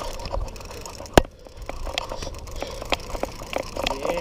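Conventional baitcasting reel being cranked against a hooked red drum pulling on the line, giving a run of sharp, irregular clicks and ticks, with one loud sharp click about a second in. A low rumble runs underneath.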